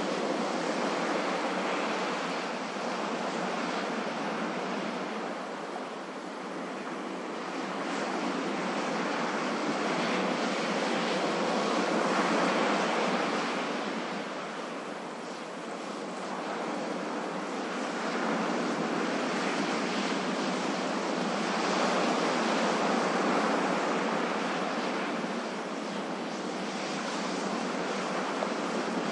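Ocean waves breaking and washing on the shore in a continuous hiss, slowly swelling and ebbing as successive waves come in, with peaks roughly every eight to ten seconds.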